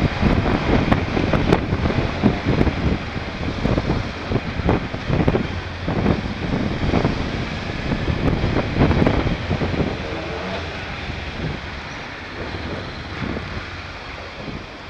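Motorcycle riding at low speed through town streets: wind buffets the microphone in gusts over the running engine. The buffeting eases about two-thirds of the way through.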